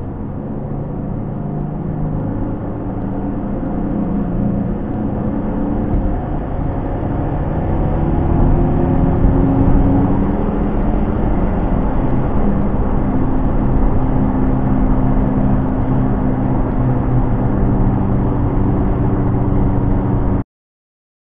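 Car engine and tyre noise heard from inside the cabin. It builds up over the first several seconds as the car speeds up, then runs steadily, and cuts off suddenly near the end.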